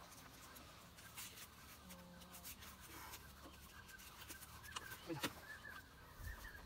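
Quiet open-air ambience with faint, scattered bird chirps in the distance, growing a little busier in the second half. A couple of soft knocks come about five seconds in.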